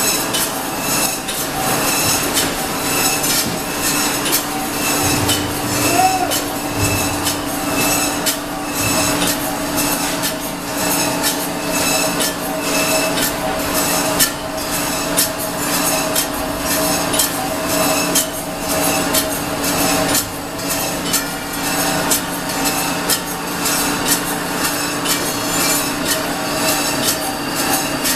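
Automatic poultry cut-up line running: the overhead shackle conveyor and cutting modules clatter and click continually over a steady mechanical hum.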